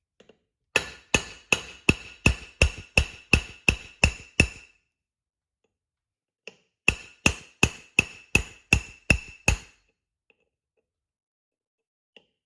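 Hammer blows on a steel punch driving the pinion gear out of a Toyota 8-inch differential housing, each strike with a short metallic ring. About ten quick, even blows, a pause of two seconds, then about nine more.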